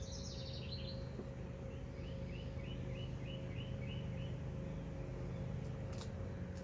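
A small songbird singing outdoors: a quick falling run of high notes, then about eight short repeated chirps at roughly three a second. A steady low hum runs beneath, and there is a single click near the end.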